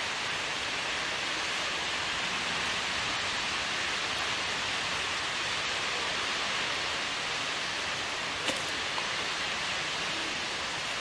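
Steady, even hiss with no distinct sound in it, and a short click about eight and a half seconds in.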